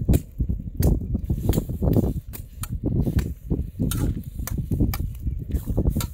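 Repeated sharp knocks, roughly every half second, over a dull low rumble.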